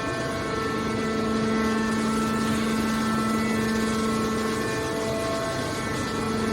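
Hydraulic metal baler running: a steady machine hum with a constant whine and its overtones over a bed of mechanical noise.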